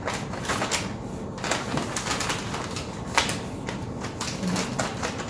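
Wrapping paper rustling and crinkling as a folded paper gift bag is handled, with one sharp tap about three seconds in.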